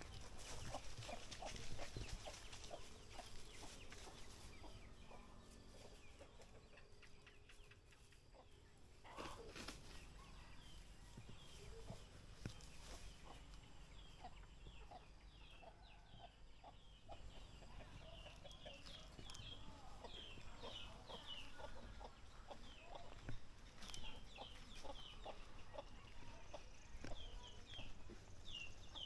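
Chickens clucking, with many short, high chirps coming thick and fast through the latter half.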